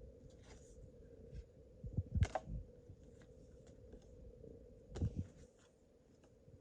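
Paper trading cards being handled and flipped through, with soft rustles and clicks and two louder handling knocks about two and five seconds in, over a faint steady hum.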